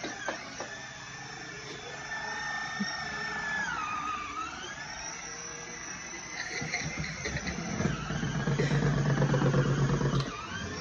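Battery-powered ride-on toy quad bike whirring as its electric motor and gearbox drive it over carpet, building to a louder, pulsing hum in the last few seconds and cutting off just before the end.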